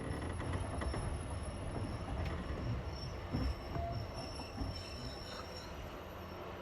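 Passenger train carriage rolling over jointed rail track with a steady low rumble. A few separate wheel knocks come at the rail joints, partway through.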